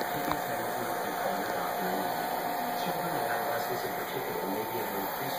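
Steady background hum and hiss with two faint steady tones, and a single light click about a third of a second in.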